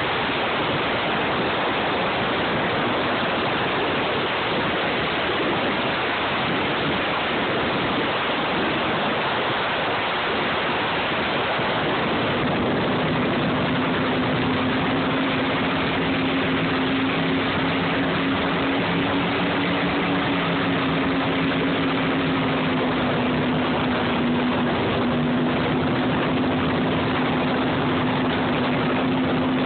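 Cigarette-style offshore powerboat running at speed: a steady rush of wind and water, with the even drone of the boat's engine coming through partway in and holding steady.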